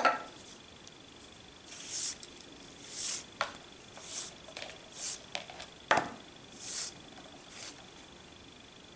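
Thin leather lace being pulled by hand through a tight braid: about six soft swishing rubs of the lace sliding through the weave, roughly one a second, with a few sharp clicks in between.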